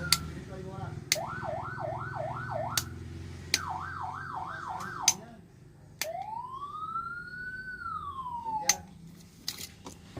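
Whelen electronic fire-truck siren heard through two horn loudspeakers and switched between tones: a wail cut off with a click, two short runs of fast yelp, then one slow wail that rises and falls. Sharp clicks mark each change, over a steady low hum.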